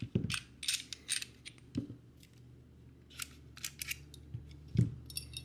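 Steel parts of a Beretta Model 1934 pistol clicking and scraping against each other as the pistol is taken apart, the slide and barrel sliding free of the frame. It is a run of small clicks, with one sharper knock near the end.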